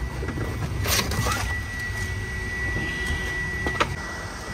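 A rubber car floor mat being grabbed and shifted, with a brief rustle about a second in, over a steady low rumble. A thin steady high whine starts soon after, and there is a sharp click near the end.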